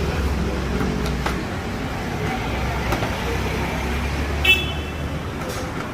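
Steady low rumble of street traffic with a few faint clicks, and a short high beep about four and a half seconds in.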